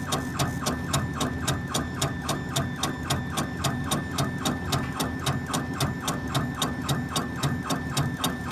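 Laser engraver's gantry scanning back and forth while engraving a Zippo lighter: stepper motors whirring with a short click at each pass, about four or five a second, very regular.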